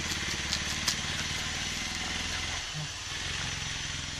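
An engine idling steadily in the background, its hum thinning out a little past halfway. Over it, two sharp crackles about half a second and a second in as a knife slits the plastic-wrapped coir pith ball.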